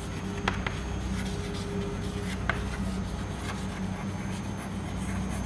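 Chalk writing on a blackboard: soft scratching strokes with a few sharp taps as the chalk meets the board, over a steady low hum.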